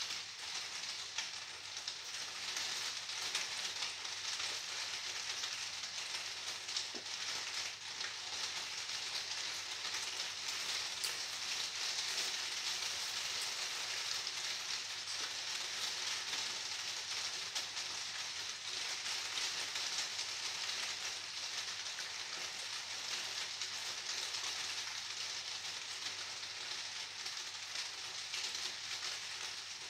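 Steady rain, an even hiss with many fine ticks through it.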